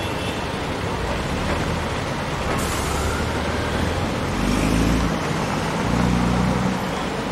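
Steady city street traffic noise. A short hiss comes about three seconds in, and a low rumble swells twice in the second half.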